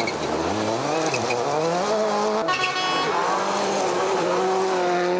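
Subaru Impreza WRC rally car's turbocharged flat-four engine revving hard on a gravel stage, its note climbing and dropping back several times as it accelerates, then holding a steady high pitch near the end.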